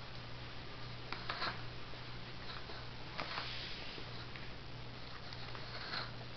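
A cat rubbing and pawing at a corrugated cardboard scratcher: a few short scratchy scrapes, about a second in, around three seconds in and near the end, over a steady low hum.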